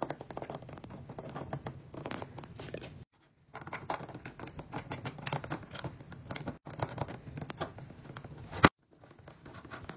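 Toothbrush bristles scrubbing back and forth over the hard plastic teeth of a Melissa & Doug toy dentist model mouth: a dense, scratchy rustle with small clicks. It stops briefly about three seconds in and again near the end, with a sharp click just before the last stop.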